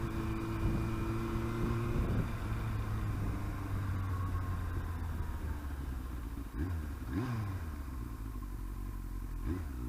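Yamaha R1 inline-four engine running steadily on the move, with road and wind noise. The engine note drops and climbs again at about seven seconds and again near the end, as the throttle is rolled off and back on.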